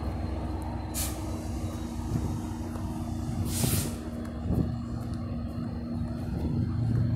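Trinity Railway Express diesel locomotive approaching, its engine running with a steady low hum, and two short air hisses from the brakes, about a second in and about three and a half seconds in, the second one longer.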